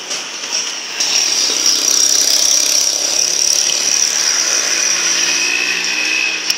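A motor running with a steady high-pitched whine over a lower hum, starting about a second in and stopping abruptly near the end.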